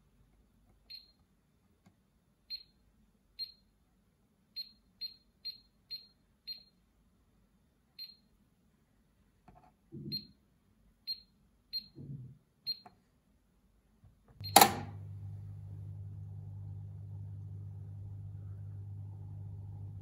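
Miele W1 washing machine's touch control panel giving about a dozen short high beeps as its keys are pressed. About fourteen seconds in comes a loud click, then the machine starts up with a steady low hum.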